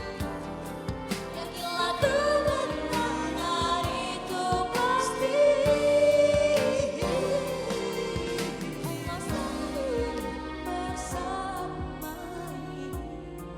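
A vocal group singing a slow pop ballad over a backing track with a steady beat.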